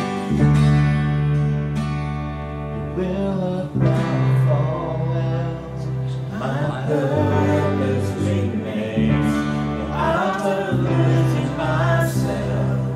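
Worship song playing: guitar-led band music with steady bass notes, and a voice singing the melody from about four seconds in.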